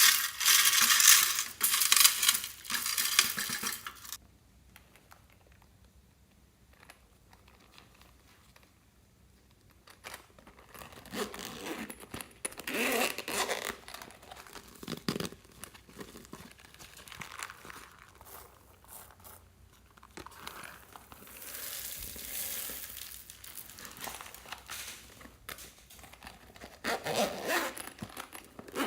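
Beads and floam being mixed into slime by hand: a dense clicking rattle of beads for the first few seconds, then, after a quiet stretch, intermittent soft crackling and squishing as the slime is pressed and stretched.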